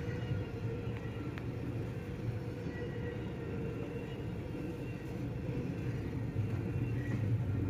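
BNSF double-stack intermodal freight train rolling past at a grade crossing, making a steady rumble of wheels on rail, heard from inside a car's cabin.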